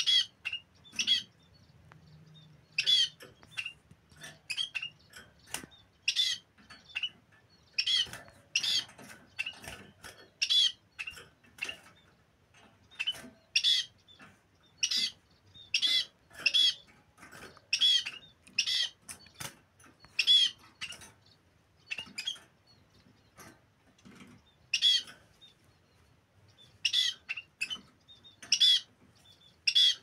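Small caged finches, munias among them, giving short, high calls, one after another about once a second in irregular runs with a few brief pauses.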